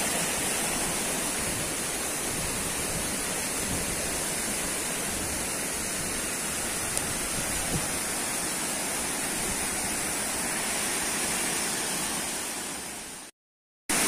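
Steady rushing of a waterfall and its river, an even wash of water noise without pauses. It fades away near the end and breaks off into a brief silence.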